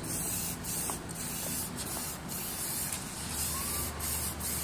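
Spray paint hissing from a spray nozzle in a string of short bursts, each broken off by a brief pause.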